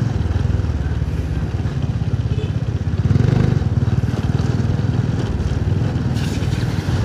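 Motorcycle engine running steadily at low riding speed, a fast low pulsing, with road and wind noise over it; it gets a little louder about three seconds in.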